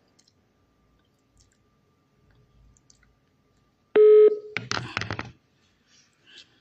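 Near silence, then about four seconds in a loud steady electronic beep lasting about half a second, followed by a quick cluster of clicks for under a second.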